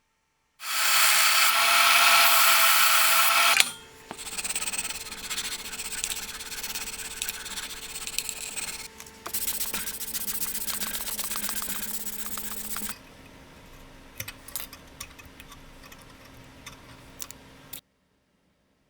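Workshop power tool work in short cuts: first a loud motor-driven tool cutting or grinding, then a steadier rubbing and scraping against the workpiece over a running motor hum. It ends with quieter scattered taps and handling clicks.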